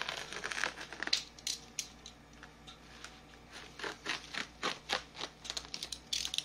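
Plastic bubble-wrap packaging being cut with a utility knife and handled: an irregular run of short crackles, scratches and scrapes, busiest at the start and again near the end.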